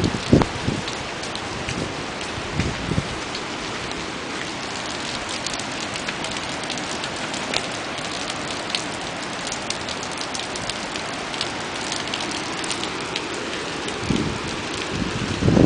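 Steady rain falling, with a constant hiss and many small drop ticks. A few low rumbles swell up near the start and again near the end.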